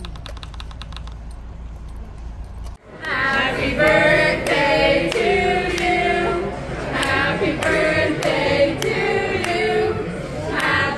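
Low wind rumble on the microphone for the first few seconds, then suddenly a group of voices singing together, with hands clapping in time at about two claps a second.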